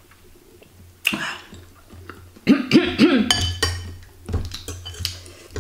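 A metal fork and spoon clinking and scraping against a glass bowl, with ringing clinks through the second half. About halfway, brief muffled voice sounds from the eater reacting to the chilli heat of the soup.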